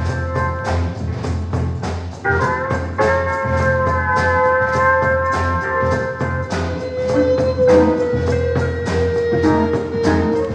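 Live band music: percussion keeps a steady beat of about three strokes a second, and about two seconds in a held organ chord comes in over it, one note of it sustained to the end.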